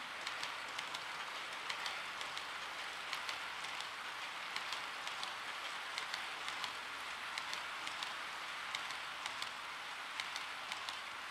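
Model railway flat wagons (JNR Chiki 7000) rolling along the track: a steady rolling hiss with irregular light clicks from the wheels running over the rails.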